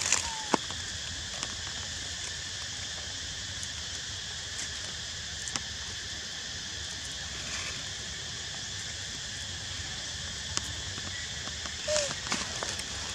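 Steady outdoor insect chorus, an even high hiss, with a few faint clicks and rustles and a short soft squeak near the end.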